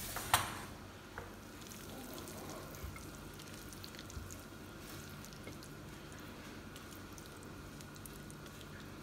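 A sharp click just after the start, then faint soft squishing and light scraping as cooked masala vegetables are spooned from a non-stick pan onto a plate with a silicone spatula.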